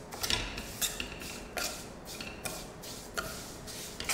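Steel spatula scraping and stirring vermicelli as it roasts in ghee in a kadhai: a series of scraping strokes a little under a second apart.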